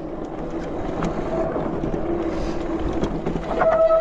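E-bike rolling over a rough dirt trail, with tyre and rattle noise and wind buffeting the microphone. About three and a half seconds in, a strong, steady high squeal starts abruptly: the bike's brakes squeaking as the rider slows into a descent.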